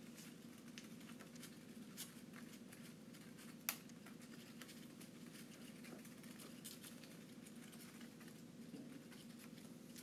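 Faint, scattered clicks and paper crinkling as a cockatiel chews and tears at a folded coloured-paper flower with its beak, with one sharper click a little under four seconds in.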